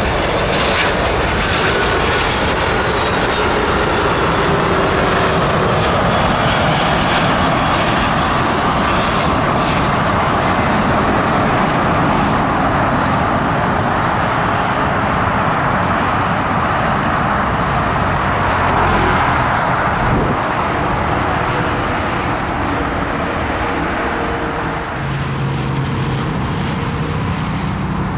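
Jet airliner engines running loud as the aircraft passes, a steady roar with a high whine falling in pitch over the first few seconds. Near the end the roar eases and a lower steady hum comes in.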